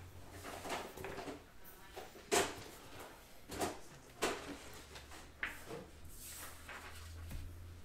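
A few sharp knocks and clatters, the loudest about two seconds in, as objects are handled and set down at a desk. A faint steady low hum runs underneath.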